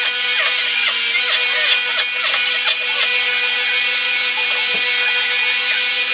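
Small handheld rotary tool running with a steady high whine as it grinds the end of a poplar handle blank to round it off. There is a single dull knock about three-quarters of the way through.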